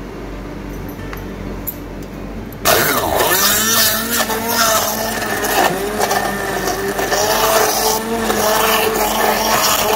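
Electric hand-held stick blender switched on about a third of the way in. Its motor runs with a whine that wavers in pitch as it purées mint leaves and liquid for green chutney.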